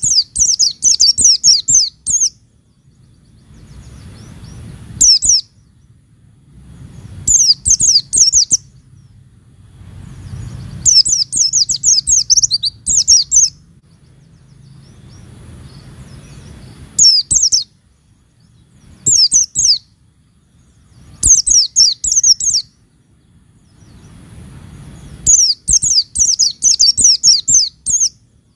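White-eye (pleci) singing in repeated bursts of rapid, high twittering, each burst about one to two seconds long, with short pauses between them.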